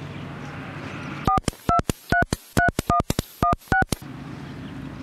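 Mobile phone keypad tones as a number is dialed: about eight short two-note beeps in quick, slightly uneven succession.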